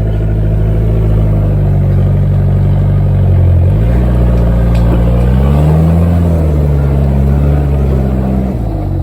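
4x4 engine working hard under load on a steep rocky climb, its note dipping and rising as the revs change, then dropping away near the end.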